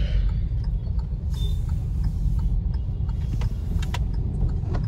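Steady low rumble of a car's engine and tyres on a wet road, heard from inside the cabin while driving, with a few faint ticks.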